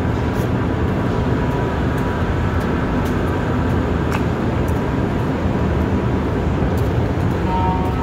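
Rubber-tyred Montreal metro train running at the platform: a steady low rumble with a thin steady whine over it, and a second higher whine joining near the end.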